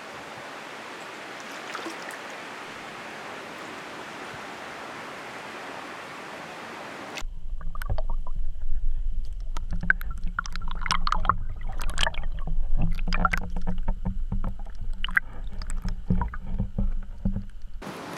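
Water sloshing and splashing against a GoPro Hero 3's waterproof housing at the river surface: a muffled low rumble broken by sharp splashy crackles, starting abruptly about seven seconds in and cutting off near the end. Before it, a steady soft outdoor hiss.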